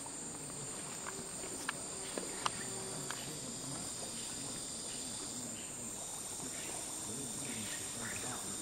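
Steady, high-pitched chorus of rainforest insects, with a few faint sharp knocks in the first few seconds.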